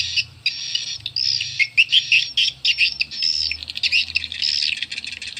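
Recorded edible-nest swiftlet calls played through two horn tweeters from a swiftlet-house amplifier: short, quickly repeated runs of high twittering chirps, some sweeping up and down, with fast clicking in between.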